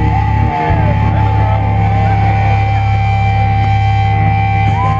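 Loud live rock music from a band on stage: a sustained distorted low drone with a steady high note held over it. The low drone drops out for a moment about half a second in.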